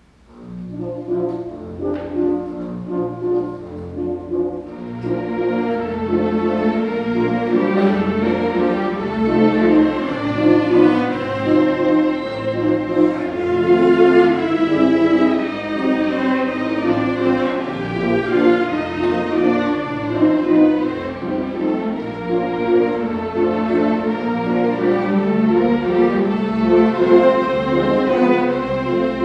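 A full orchestra, mostly bowed strings with brass, playing a waltz. It enters quietly and grows fuller and brighter about five seconds in.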